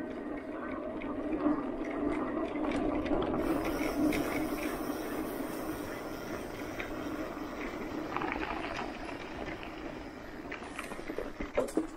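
Electric mountain bike rolling along a leaf-covered dirt trail: steady rolling and drivetrain noise, with a few sharp clicks and rattles near the end.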